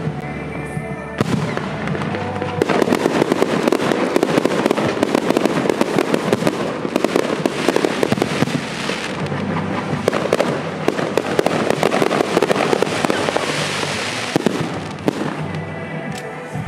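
Aerial fireworks show: a dense, continuous barrage of bangs and crackling from bursting shells, which thickens after the first second or two and thins a little near the end.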